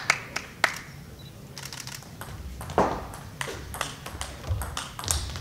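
Table tennis ball clicking off rackets and the table during a rally: a run of sharp, evenly spaced ticks, with a short lull about a second in before the exchange picks up.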